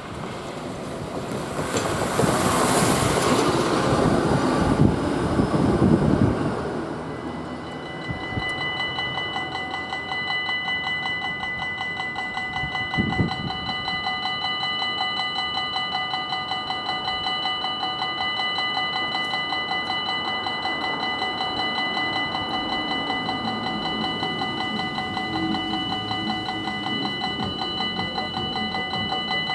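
A Belgian level-crossing warning bell starts about seven seconds in and rings steadily, in rapid strokes with a bright, multi-toned ring, as the crossing's red lights flash and its barriers come down. Before it starts, a road vehicle passes with a loud rush.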